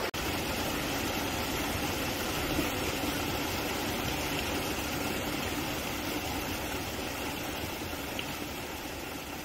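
Steady rushing of a small waterfall splashing into a pool, slowly fading.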